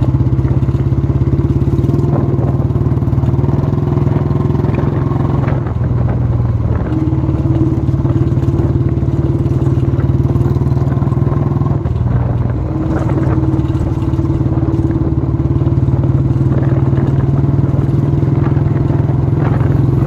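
Royal Enfield Classic 350's single-cylinder engine running steadily as the motorcycle rides over a rough, broken road, with light rattles from the bike jolting over bumps. The engine note dips and recovers twice, around seven and twelve seconds in.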